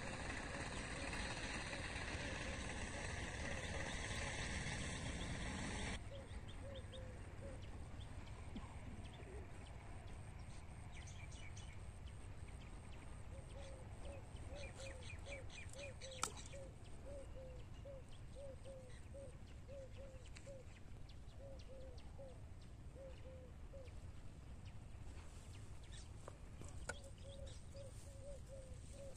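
A bird calling outdoors, repeating short low notes about twice a second, with faint higher chirps around it. The first six seconds are a louder steady noise that cuts off abruptly. There is a sharp click about halfway through and another near the end.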